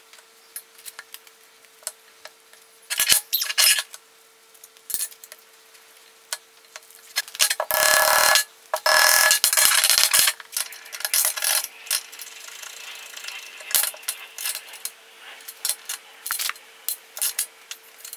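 Small metal hardware and tools clinking, knocking and scraping on a steel workbench as bushes are fitted into suspension arms. A longer, louder scraping and rustling stretch comes about eight seconds in, over a faint steady hum.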